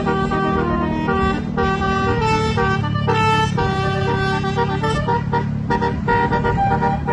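A bus's multi-tone basuri 'telolet' horn playing a tune of held notes that step from pitch to pitch, with a steady low hum underneath.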